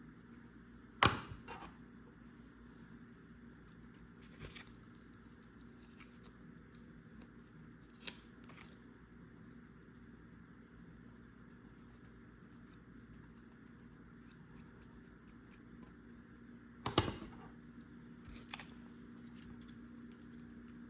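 Metal tools and parts knocking and clinking as they are handled: two sharp knocks, about a second in and late on, with a few lighter clicks between.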